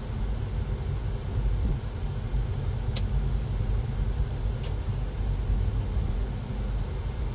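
Steady low rumble of a car driving at low speed, heard from inside the cabin: engine and tyre noise. Two faint short clicks come about three and about four and a half seconds in.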